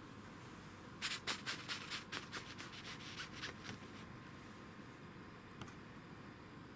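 A quick run of scratchy rustles, about six a second for nearly three seconds, as the cat shifts on the nylon shell of a down jacket, then one lone click.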